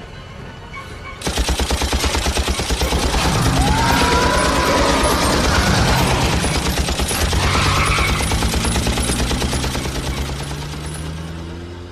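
A long burst of rapid automatic gunfire from a heavy weapon starts suddenly about a second in. The evenly spaced shots go on for about ten seconds and fade toward the end.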